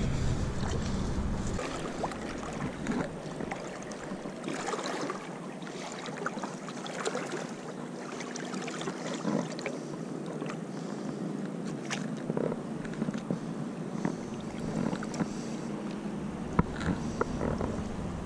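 River water sloshing and splashing around the legs of an angler wading in neoprene waders, with irregular small splashes.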